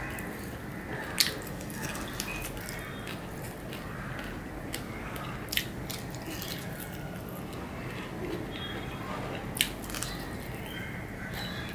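Close-up chewing and mouth sounds of a person eating mutton kacchi biryani by hand. There are sharp clicks about a second in, around the middle, and near ten seconds, over a steady low hum.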